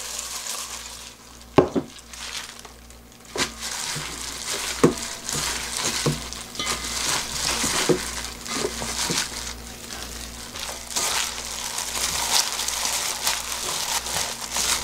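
Gloved hands tossing cut garlic chives and onion in wet chili seasoning in a stainless steel bowl: continuous rustling, squelching and plastic-glove crinkling, with a few sharp knocks in the first half as the bowl and chives are handled.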